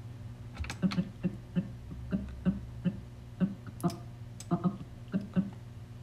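Computer keyboard and mouse clicking: about fifteen short, irregular clicks over a low steady hum.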